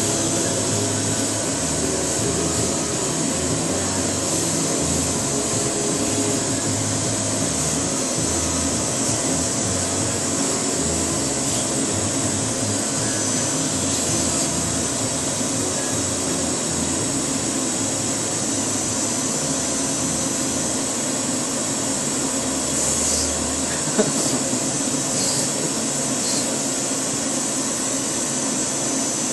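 Vacuum cleaner running steadily, its low rumble rising and falling as it is moved about. There is a single sharp click about three-quarters of the way through.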